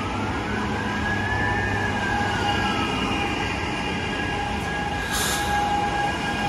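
Flytoget airport express electric train running past on the near track: a steady rail rumble with high whining tones over it. One whine rises and falls over the first few seconds, and a short hiss comes about five seconds in.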